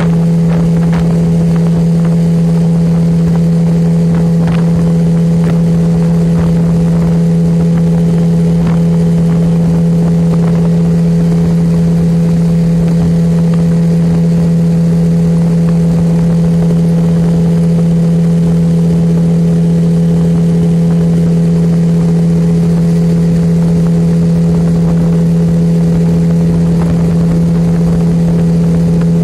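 Motorboat engine running at a constant speed, a loud, even drone that holds one pitch throughout.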